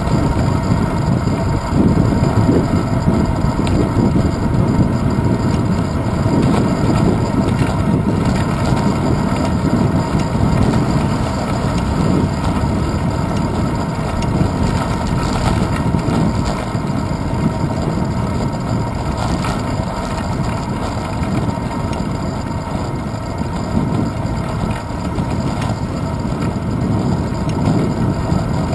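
Steady wind buffeting and road rumble picked up by a handlebar-mounted GoPro Hero 2 on a bicycle rolling along asphalt, a loud, low, wavering rush.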